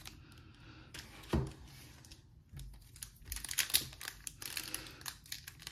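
Foil wrappers of Pokémon Crown Zenith booster packs crinkling as they are handled, with one sharp click about a second and a half in. From about halfway through the crinkling turns denser and louder as one pack is gripped at its crimped top to be torn open.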